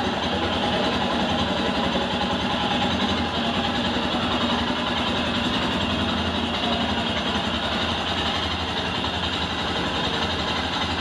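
Royal Enfield Scram 411's 411 cc single-cylinder engine idling steadily in neutral.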